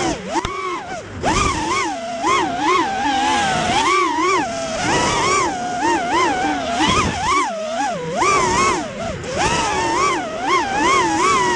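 FPV racing quadcopter's brushless motors and propellers whining, the pitch rising and falling quickly and constantly as the throttle is worked through the flight.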